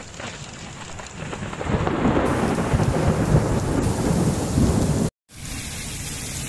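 Thunder rumbling over heavy rain, swelling about two seconds in and cutting off abruptly after about five seconds. After a short break there is the steady hiss of a downpour.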